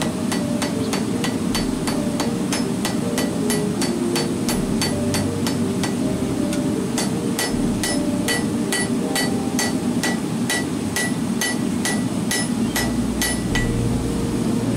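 Hand hammer striking a red-hot steel bar on an anvil, forging it into a fire steel, in a steady rhythm of about three blows a second, each with a short bright ring. The blows stop near the end.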